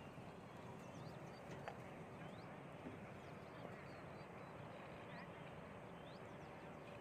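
Quiet open-air ambience with distant birds giving short rising chirps every second or so, and a few faint clicks.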